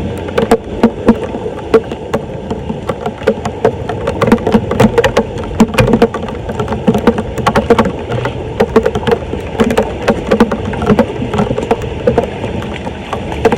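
Rapid, irregular knocking and scraping, several knocks a second, from debris being cleared at a clogged storm drain.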